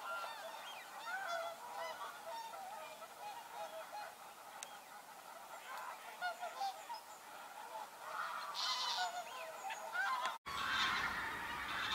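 Many geese honking together in a flock, a dense chatter of overlapping calls. After a cut near the end the calling becomes louder and denser.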